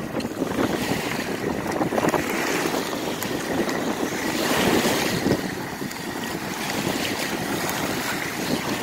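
Wind buffeting the microphone over small waves washing at the shoreline, with the faint steady whine of a radio-controlled boat's motor running out on the water.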